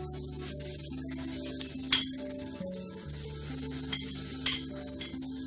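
Chopped garlic sizzling in hot oil in a kadai, with a few sharp clinks of utensils against the pan, as chopped ginger is tipped in from a glass plate.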